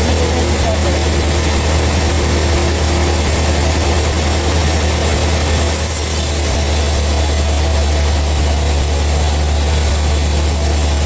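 Heavy sawmill machinery engine running steadily with a constant low hum.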